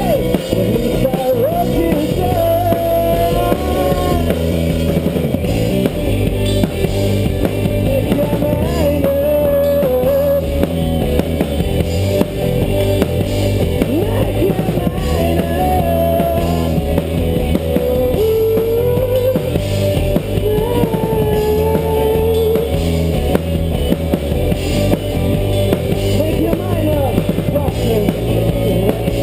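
Live rock band playing a song on drum kit, bass and guitar, with a wavering lead melody over a steady drum beat.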